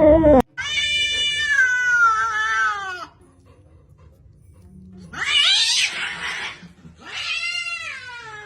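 A cat yowling in long drawn-out calls: one long yowl that falls in pitch at its end, a rougher, harsher cry about five seconds in, and another yowl that falls away near the end.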